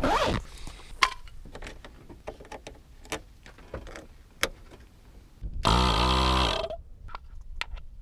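A zipper opens a bag at the start, followed by scattered clicks and clatter as battery clamps and a portable 12-volt air compressor are handled. A little past the middle, the compressor's motor runs loudly for about a second, then winds down.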